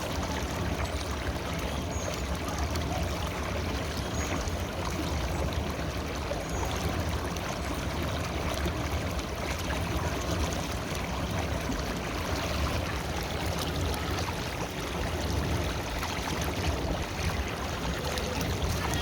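River water flowing steadily, an even, continuous rushing and babbling.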